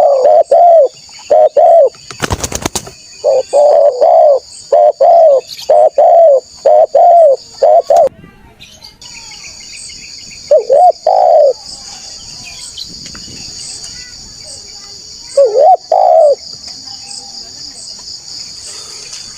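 Spotted dove cooing: a rapid run of short, hoarse coos in repeated phrases, breaking off about eight seconds in, then two brief coo pairs near eleven and sixteen seconds. Under it runs a steady high-pitched insect drone, and a loud rustling noise comes about two seconds in.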